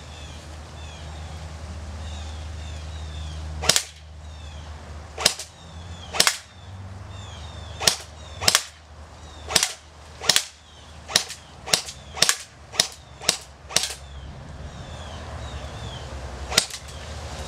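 Airsoft G36 rifle fired on semi-automatic: about fourteen single sharp shots, spaced irregularly, coming in quick succession through the middle with one last shot near the end.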